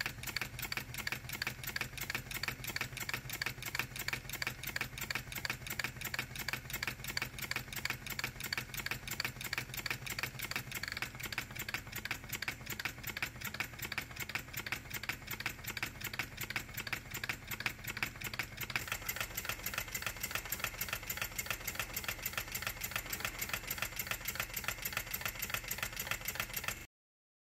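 Model walking-beam engine running on compressed air with a fast, even clatter of knocks, several a second, that stops abruptly near the end. The clatter comes from a poorly made eccentric and wear in the beam bearings.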